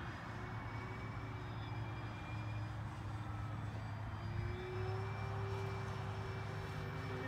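Twin electric motors and propellers of an FMS Tigercat RC model plane whining overhead, a steady tone that steps up in pitch about four seconds in.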